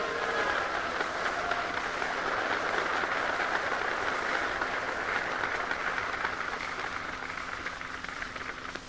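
Huge outdoor crowd applauding and cheering, swelling up at once and slowly dying away near the end, heard on a hissy 1942 recording with a steady low hum underneath.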